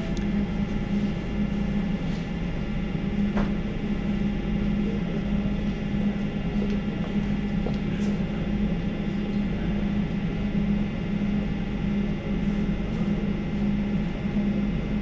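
Steady electrical hum inside an Elizabeth line train carriage, holding one pitch throughout, with a few faint clicks.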